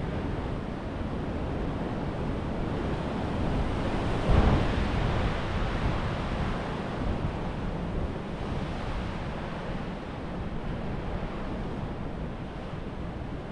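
Sea waves washing against the shore rocks, with wind buffeting the microphone. A louder surge comes about four seconds in.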